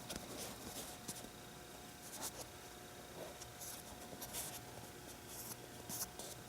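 Fingers squeezing and rubbing a soft foam squishy toy, giving faint, irregular scratchy rustles.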